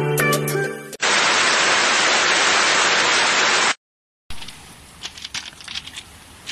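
A loud, even burst of static hiss lasting nearly three seconds, which cuts off abruptly, follows the tail end of guitar music. After a brief silence, faint outdoor background with small clicks comes in.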